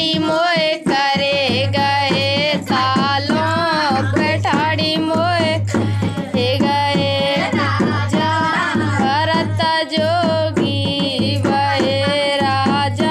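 Indian folk song: a high voice singing a wavering melody over steady dholak drumming.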